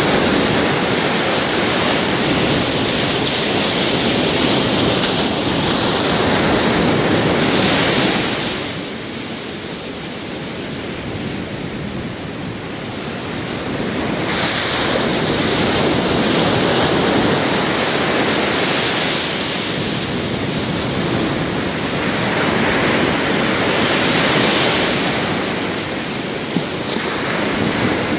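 Pacific surf breaking on a sandy beach: a steady rush of waves that eases into a quieter lull about a third of the way in, then builds again as the next waves come in.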